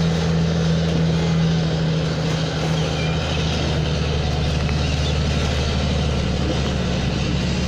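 An engine running steadily, a low even hum that shifts slightly in pitch about three seconds in.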